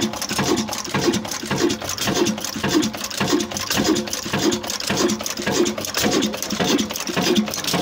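Old Ruston 26 hp diesel oil engine running at slow speed, a regular beat of about three strokes a second with metallic clatter over it.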